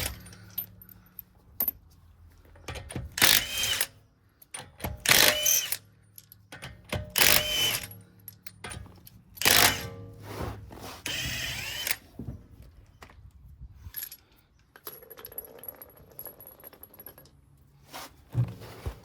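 Cordless impact wrench undoing the wheel nuts, in about five short bursts roughly two seconds apart, the last one longer.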